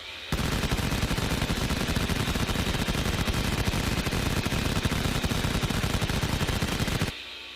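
Rapid automatic gunfire, a sustained burst of about seven seconds that stops abruptly near the end.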